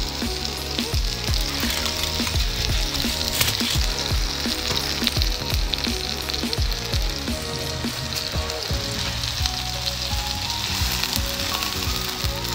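Marinated tandoori chicken sizzling on foil on a barbecue hot plate: a steady frying hiss, with background music playing under it.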